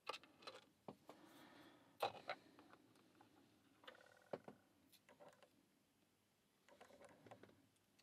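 Faint, scattered clicks and light metallic ticks of a small tubular lock's metal parts being handled and worked apart by fingers, with a sharper click about two seconds in and a brief faint ring around four seconds.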